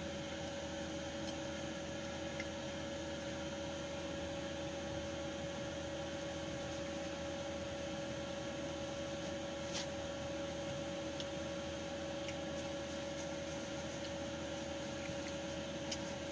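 Steady background hum with two constant tones over a light hiss, and a few faint clicks.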